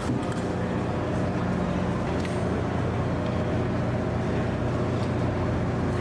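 Steady low machinery drone of a ship underway, with a constant hum, and a couple of faint clicks as the outboard motor is handled.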